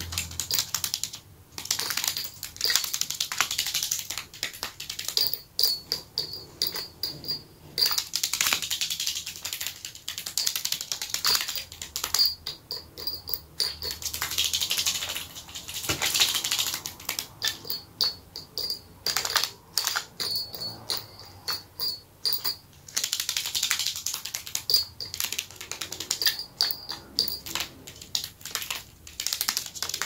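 Budgerigar's feet pattering on paper maps as it walks about: quick, irregular runs of light tapping steps that stop and start.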